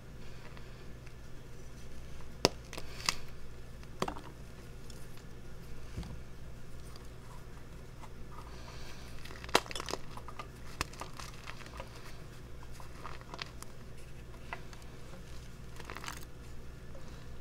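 Fingers crushing and crumbling reformed gym chalk into powder: dry, crunchy crackling with scattered small clicks. Two sharp snaps stand out, about two and a half seconds in and just before the ten-second mark.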